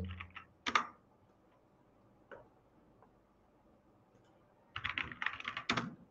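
Typing on a computer keyboard: a few keystrokes near the start, a single click a little past two seconds in, then a quick run of keystrokes about five seconds in.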